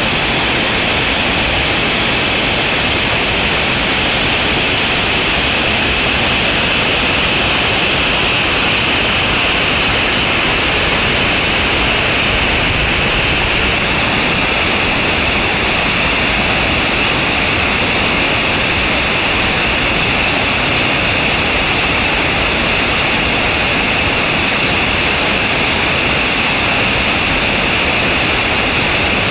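Whitewater rapids of a creek running high: a loud, steady rushing roar of water, shifting slightly in tone about halfway through.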